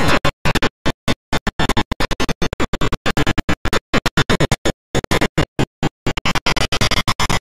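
Black MIDI playback: huge clusters of synthesized notes across the whole keyboard, stuttering on and off in short bursts several times a second, with sudden silent gaps between them.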